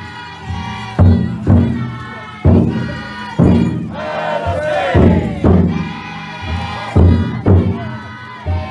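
Large taiko drum of a futon daiko festival float being beaten in heavy strikes, often two about half a second apart, while a crowd of carriers chant and shout together.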